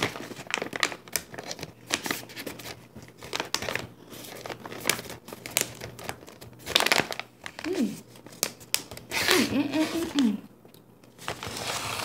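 Snack pouch crinkling and rustling as it is handled and reached into, in irregular crackles, with a couple of short murmurs of voice.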